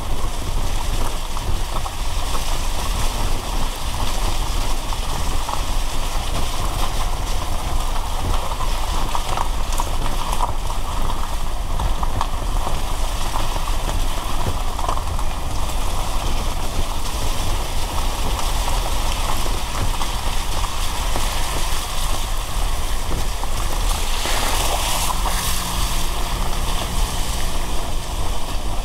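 A car driving on a rain-soaked road: steady tyre hiss and spray from the wet surface over a low road rumble, with a brief louder swish a little before the end and a steady engine hum coming through near the end.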